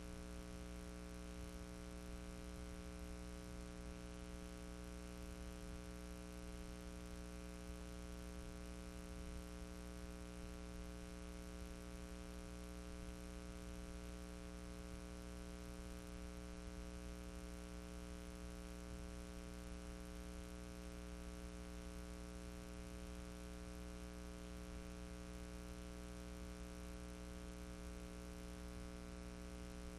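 Steady electrical hum with hiss and nothing else, unchanging throughout: the empty sound track of silent archive news film.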